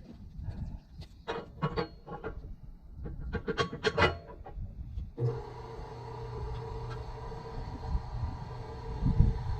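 Rasping, scraping strokes for several seconds. About five seconds in, a small engine, typically a chainsaw, catches and keeps running at a steady idle.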